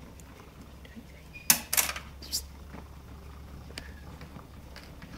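Treadmill running with a steady low hum. Three or four sharp clicks about a second and a half in are the loudest sounds.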